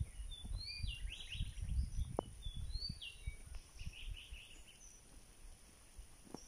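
Birds calling: a run of short, high whistled notes that rise and fall, for the first four seconds or so, over a low rumble.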